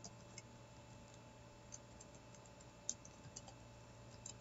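Faint computer keyboard keystrokes, scattered irregular taps as a word is typed, over a faint steady hum.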